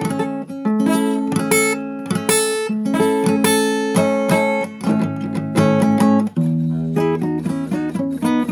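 Instrumental music led by acoustic guitar, strummed and picked in quick strokes, with the chord changing about six seconds in.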